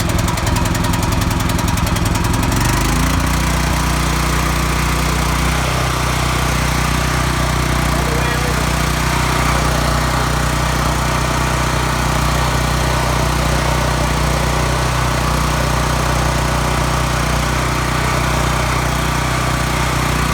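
Champion 389 cc generator's single-cylinder four-stroke engine running, uneven and stuttering at first, then about two and a half seconds in settling into a steady, even hum as the choke is taken off after its cold-start warm-up.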